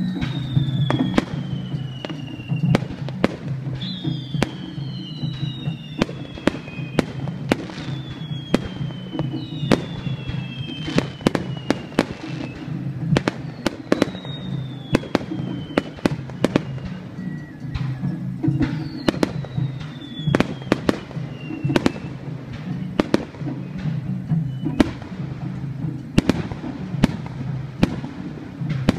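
Fireworks display: aerial shells bursting in a rapid, irregular string of sharp bangs, with whistling shells sounding every few seconds, each whistle falling in pitch.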